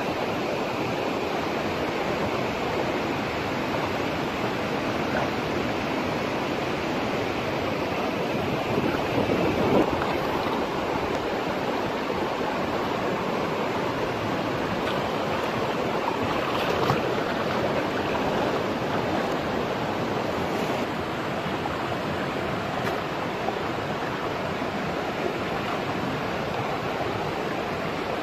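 Steady rush of flowing river water, with a couple of brief louder swells about a third of the way and halfway through.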